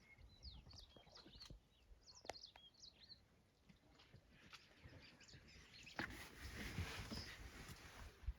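Faint bird chirps, a quick cluster of short high calls in the first three seconds, with a few sharp clicks; about six seconds in a louder rushing, hissing noise comes up.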